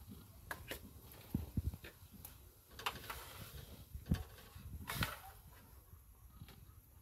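Scattered light clinks and knocks of a ladle, cups and spoons against a steel kadhai and bowls, with a few soft low thumps.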